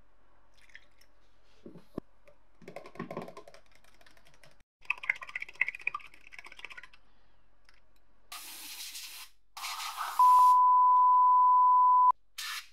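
Liquid poured into a small plastic cup, then a thin metal rod stirring and clicking against the inside of the cup. Near the end come two short hisses and a loud, steady, high-pitched beep lasting about two seconds, which stops abruptly.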